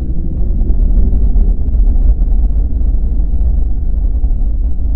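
Loud, deep rumble of a cinematic logo sound effect, building a little in the first second and then holding steady.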